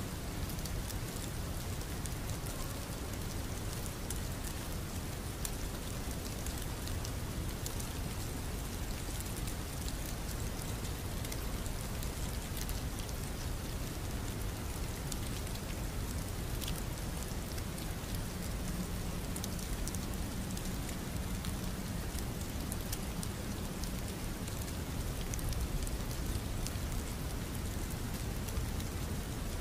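Steady rain ambience: an even hiss of rainfall sprinkled with many small drop ticks.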